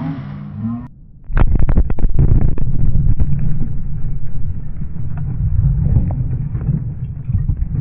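Dynamite blast tearing a car apart, heard close up: after a short lull it starts suddenly about a second in and goes on as a loud, deep rumble, crackling with many sharp hits from flying debris.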